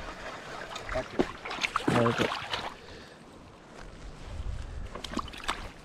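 A short burst of a person's voice about two seconds in, over a steady rush of moving water, with a few light clicks.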